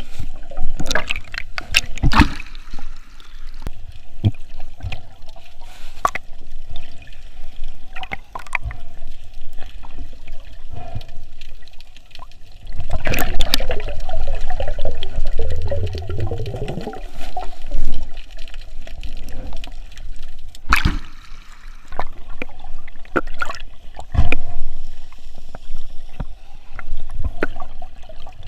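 Water sloshing and gurgling around a camera in the sea while snorkeling, with sharp clicks and knocks throughout and a louder rush of churning water about halfway through.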